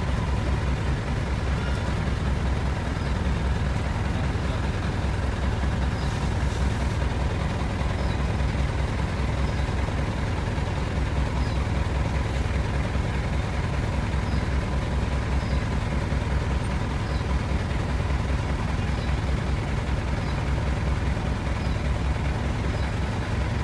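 Engine of a caged safari vehicle running steadily, a low even rumble.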